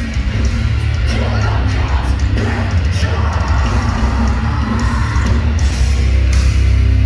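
Metalcore band playing live and loud through a venue PA, with heavy bass, singing, and shouts from the crowd. The music gets louder near the end.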